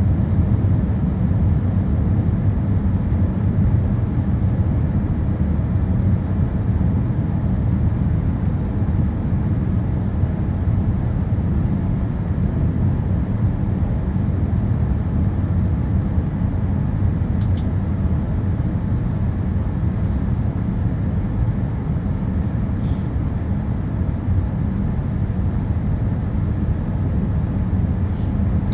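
Steady low rumble inside the cabin of a Boeing 787 in flight: engine and airflow noise, even throughout.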